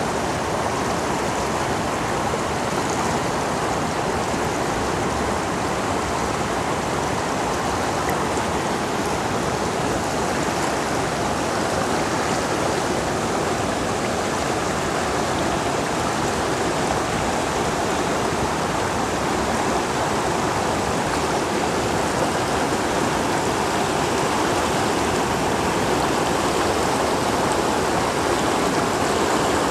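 Mountain river rushing steadily over rocks, a dense unbroken sound of flowing water.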